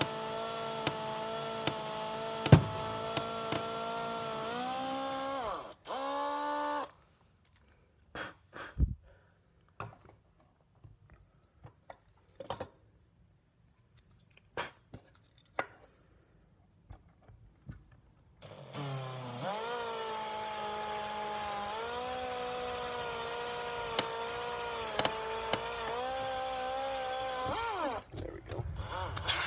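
Cordless drill with a small bit drilling slowly into thin metal, starting the holes before the full-size bit. It runs steadily for about six seconds and stops, then come a few seconds of light knocks and clicks from handling the part. It runs again for about nine seconds, and its pitch drops as it winds down near the end.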